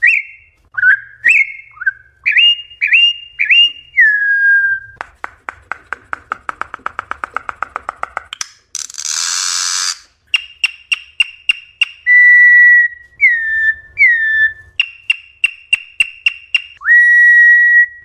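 Corrupião (campo troupial) singing its wild song: loud, clear whistled notes, some sliding up and some sliding down, with a fast run of dry clicks about five seconds in and a harsh hissing burst at about nine seconds, then more whistles laced with clicks.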